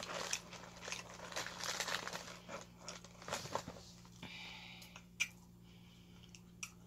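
Close-up chewing of crunchy snack crackers with crinkling and light clicks from handling a plastic dip tub. The crunching is dense for about four seconds, then thins to a few isolated clicks over a low steady hum.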